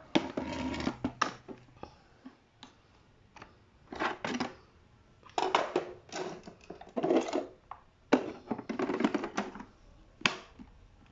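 Hard plastic clicks, knocks and rattles in irregular clusters as the Abir X6 robot vacuum's plastic water tank is handled and pushed back into place.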